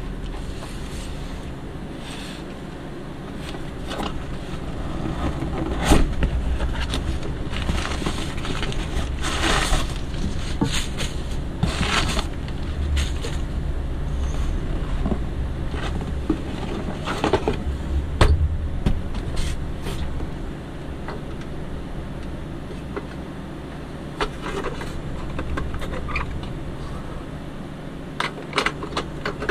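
Close-up handling sounds: a cardboard box opened and its flaps scraping and rustling, then an old metal toy van with plastic doors lifted and turned in the hands, giving small clicks and knocks. A steady low hum runs underneath.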